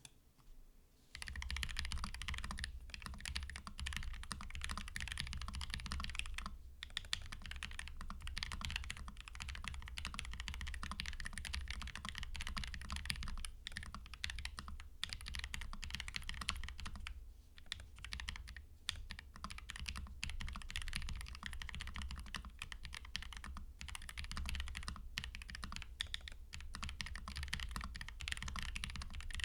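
Fast, continuous typing on a Keychron K7 Pro low-profile mechanical keyboard fitted with lubed Gateron KS-33 Low Profile Red linear switches and lubed stabilizers, in a noise-insulated case, heard with the microphone right on top of the keys. The typing starts about a second in and runs on with a few brief pauses.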